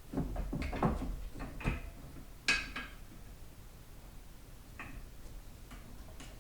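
Metal clicks and scrapes of a screwdriver prying at a snap ring inside a 4L60E automatic transmission, with one ringing metallic clink about two and a half seconds in, then a few faint clicks.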